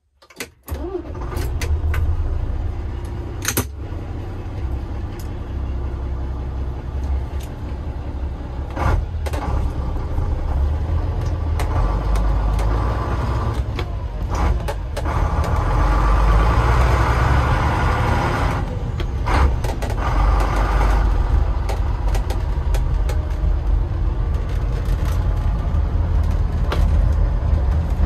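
Scania 82M truck's diesel engine cranking and catching about half a second in, then running with a deep, steady rumble heard from inside the cab. About halfway through it grows louder and fuller, and it stays loud to the end.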